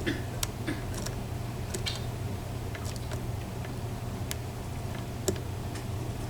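Small metal clicks and ticks of a lock pick working the pins of a Paclock 90A padlock, irregular and a few a second, the sharpest near the start and about five seconds in. A steady low hum runs underneath.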